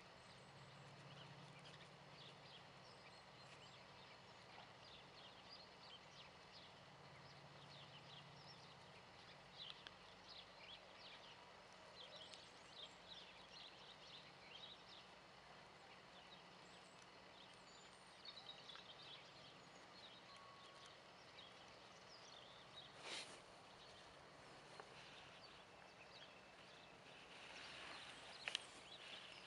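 Near silence: faint outdoor ambience with scattered faint high ticks and chirps, and one sharp click about 23 seconds in.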